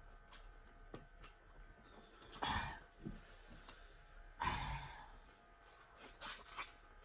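Two heavy breaths or sighs about two seconds apart, with a faint hiss between them and a few soft mouth clicks from eating.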